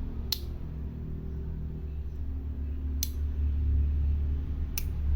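Small Swiss Army knife tools snapping shut three times, sharp clicks from the back spring, which is still firm. A steady low rumble runs under them and grows louder near the end.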